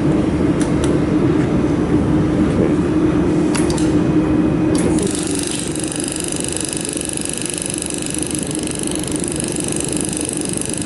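Steady hum of the laser welder's dust collection fan, with a few sharp clicks; about five seconds in, a high, even buzzing starts and keeps on: the 200 W pulsed laser welding machine firing during mold repair.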